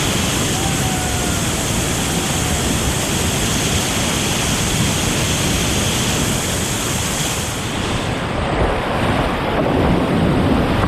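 Loud, steady rush of whitewater on a creek rapid. About eight seconds in the hiss turns duller as its highest part falls away.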